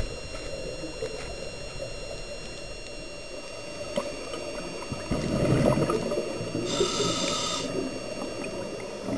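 Scuba diver breathing through a regulator underwater: a gurgling rush of exhaled bubbles about five seconds in, then the hiss of an inhale about a second later. Under it a constant low underwater rumble and a few faint steady high whines.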